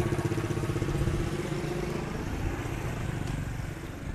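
Motorcycle engine running with an even pulsing beat, slowly growing fainter.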